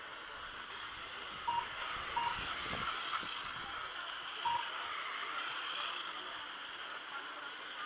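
Radio-controlled model cars running on a track, heard as a steady hiss, with three short beeps.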